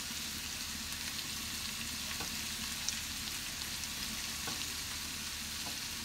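Chopped cabbage and onion sizzling steadily in vegetable oil and butter in a frying pan, with a few faint light clicks.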